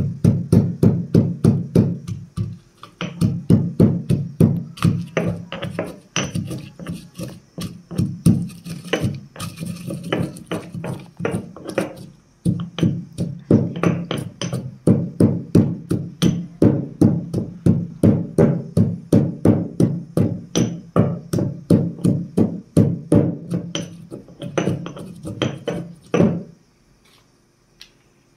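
A stone pestle pounds and grinds salt and chilies in a stone mortar, about three strikes a second, each with a short low ringing knock. The pounding stops suddenly near the end.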